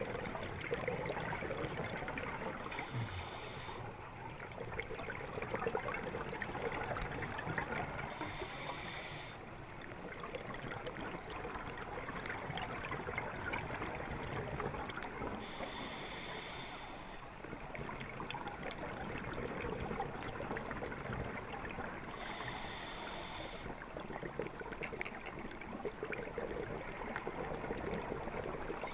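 Underwater sound of a scuba diver breathing through a regulator: a bubbling exhale lasting about a second and a half, recurring roughly every six to seven seconds, over a steady underwater crackle.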